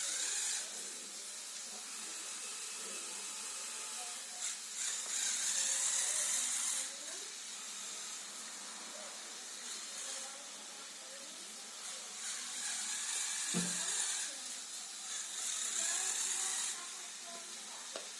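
Small electric motors of a remote-controlled Lego Technic cannon whirring in several bursts of a few seconds each, with a short thump about two-thirds of the way through.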